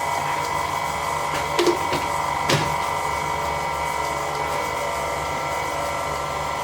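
Electric stand mixer running steadily on low, creaming butter and sugar, with an even motor whine. A few short sharp knocks about one and a half and two and a half seconds in.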